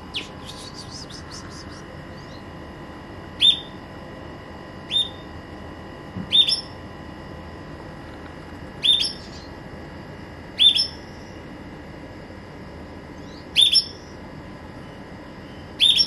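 Pet green canary calling: a quick run of high chirps at the very start, then single short, sharp call notes repeated about seven times, one to three seconds apart.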